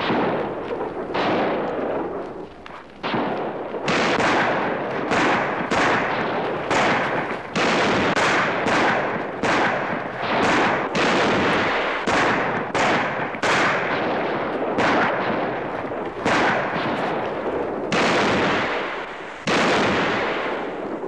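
Sustained gunfire from revolvers and rifles, shots coming about two a second, each a sharp crack with an echoing tail, some overlapping.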